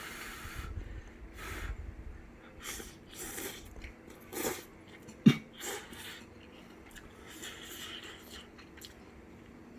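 A person eating instant ramen noodles: a run of short slurps and chewing sounds, with one sharp knock about five seconds in that is the loudest sound.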